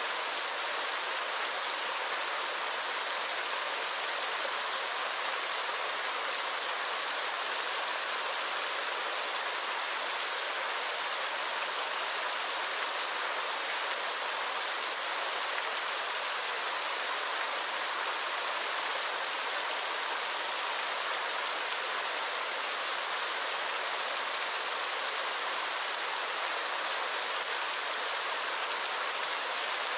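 Steady rushing water, an even, unchanging hiss with no separate drops or splashes standing out.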